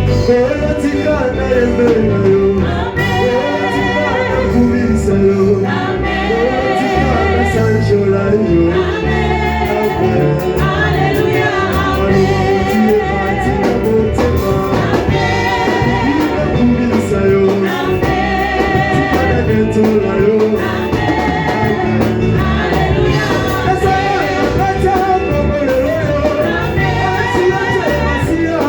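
Gospel worship music: voices singing a melody over a full, steady band accompaniment, with the singing entering about three seconds in.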